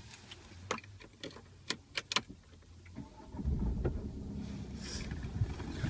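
A few sharp clicks and taps inside a car's cabin. About three seconds in, a steady low rumble of the car running begins and carries on.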